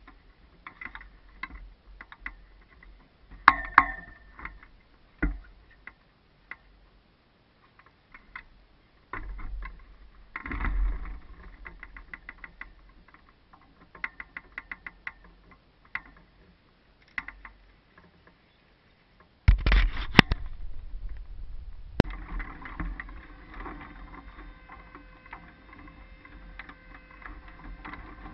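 Scattered clicks, knocks and rattles of a hang glider's frame, rigging and the pilot's harness being handled, picked up through the glider-mounted camera. About two-thirds in, a louder, steadier rushing noise with rattling begins as the glider is lifted and carried forward.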